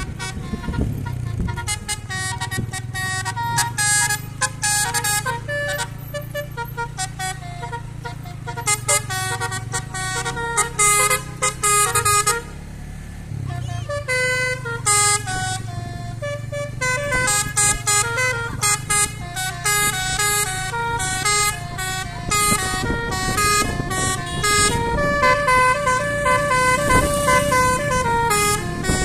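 Basuri telolet bus horn playing a fast melody of stepped tones over the steady rumble of a bus engine, with a short break in the melody about halfway through.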